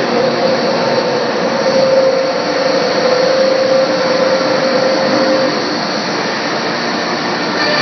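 Komo CNC router running: a steady, loud machine noise with a high, steady whine, and a lower tone that fades out about two-thirds of the way through.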